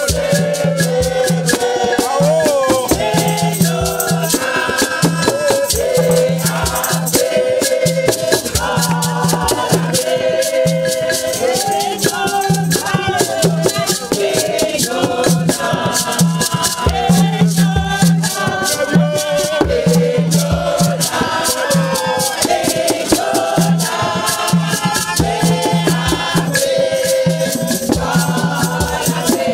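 Lively group singing with a shaker rattle keeping a fast, steady beat, with hand clapping and a low note that pulses on and off underneath.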